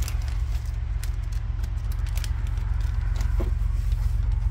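Clear plastic packaging bag crinkling in short bursts as a trim piece is drawn out of it, over a steady low rumble.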